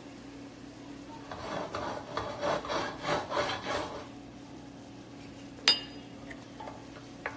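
A run of quick, rough scraping strokes, about three a second, lasting a couple of seconds. About two seconds later comes one sharp clink with a brief ring, then a faint click.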